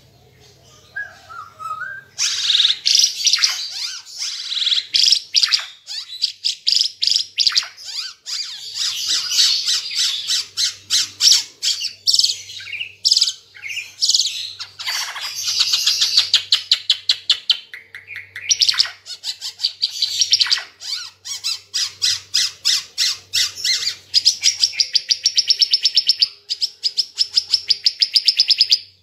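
Timor figbird singing a long, loud, fast-chattering song of rapid high repeated notes and trills, starting about two seconds in and pausing briefly past the middle.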